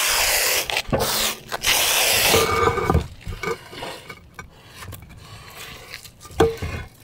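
Foam tile adhesive gun hissing as it sprays adhesive foam in a few long spurts for about two and a half seconds. Then concrete roof tiles are scraped and set down onto the foam, with one sharp knock near the end.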